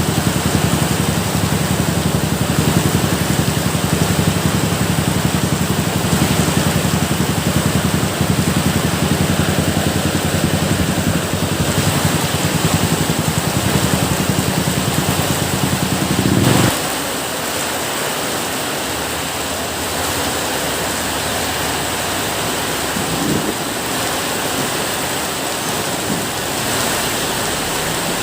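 Steady rain falling, an even hiss. A low rumble sits under it and stops abruptly a little past halfway.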